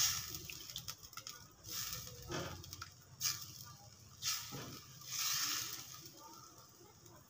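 A spatula stirring and scraping through shrimp in a thick sauce in a pan, in several uneven strokes.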